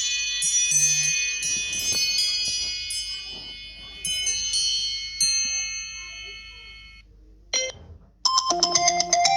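iPhone ringtones played back to back. A chiming, bell-like melody fades out over about seven seconds. A short blip follows, and then a new, louder melody of quick repeated notes starts abruptly a little past eight seconds.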